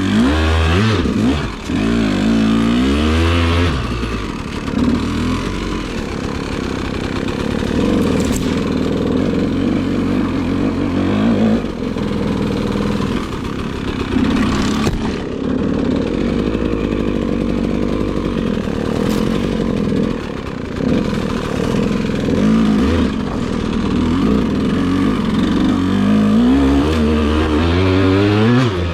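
2008 KTM 200 XC-W's single-cylinder two-stroke engine revving up and down under load on an off-trail hill climb. Its pitch rises and falls throughout, with quick swings in the first few seconds and again near the end.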